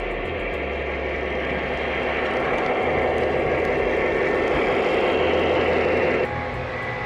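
Lionel O gauge model trains running on the layout: a steady rumble of wheels on track and locomotive motors and engine sounds. It grows louder, then drops suddenly about six seconds in.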